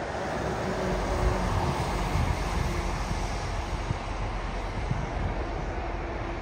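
Jet engines of a landing twin-engine widebody airliner heard from a distance as a steady whooshing rumble, without sharp changes, as it flares and touches down on the runway.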